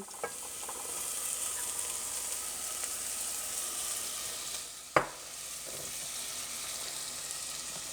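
Onions, garlic and spices sizzling in olive oil in a saucepan, a steady frying hiss. A single sharp knock about five seconds in.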